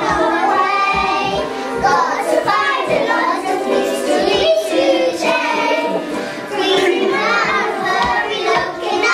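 A group of young children singing a song together.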